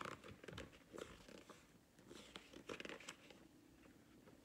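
Faint rustling and crinkling of a paper picture book's pages being handled and bent for a page turn, with a few small clicks.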